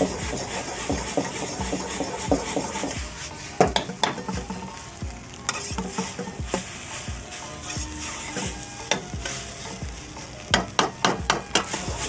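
Rice and vegetables frying with a steady sizzle in a black wok while a metal ladle stirs and tosses them, its sharp clacks and scrapes against the wok coming in quick clusters about four seconds in and again near the end.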